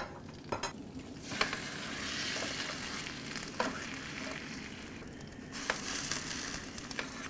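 Beef drippings, melted butter and herbs sizzling in the grill's hot drip tray, with a few sharp pops and crackles. The sizzle grows louder about a second in and eases off after about five seconds.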